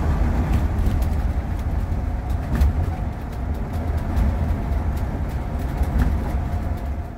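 Cab interior of a 2008 Monaco Diplomat diesel-pusher motorhome cruising at highway speed: a steady deep rumble of road and drivetrain noise, with scattered light clicks and rattles.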